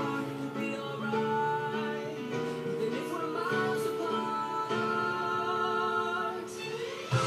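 A recorded pop song playing: singing over instrumental accompaniment, with the low notes getting louder near the end.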